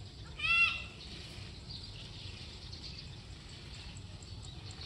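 A goat bleating once, briefly, about half a second in, the pitch rising and then falling. Under it a faint steady background with a fast, even high ticking.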